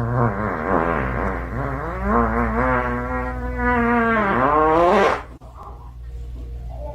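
A long, drawn-out, wavering cry from an animal, its pitch bending up and down, breaking off suddenly about five seconds in, over a steady low hum.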